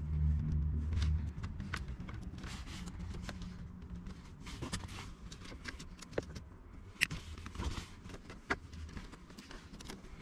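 Small clicks and rustling of car wiring and plastic connectors being handled and pressed with pliers, with sharper clicks about seven and eight and a half seconds in. A low rumble sounds in the first second or so, then fades.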